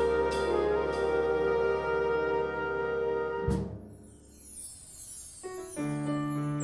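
A student band's brass section holds a loud chord, cut off by a sharp ensemble hit with a ringing cymbal about three and a half seconds in. After a quieter moment, piano chords begin near the end.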